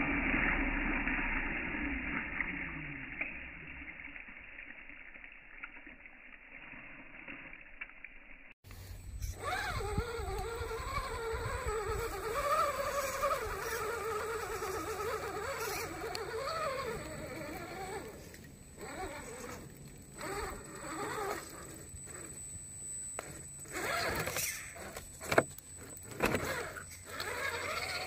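Small electric motor of an RC crawler, a Redcat Gen8 Scout II, whining as it crawls over rocks; its pitch rises and falls with the throttle. It is faint and muffled for the first several seconds, then close, with scattered knocks and clicks of tyres and chassis on rock in the second half.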